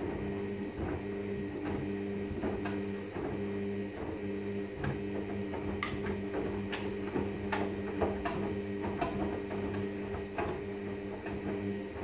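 Hoover Vision front-loading washing machine tumbling a synthetics load in the main wash. The drive motor hums steadily with short breaks, while the water sloshes and splashes as the wet clothes drop in the drum.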